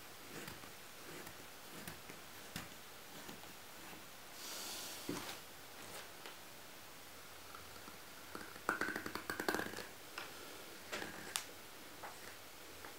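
Carving knife paring thin shavings from a wooden spoon: soft scraping cuts and small clicks, with one longer rasping stroke about four seconds in and a quick run of crackling clicks near nine seconds.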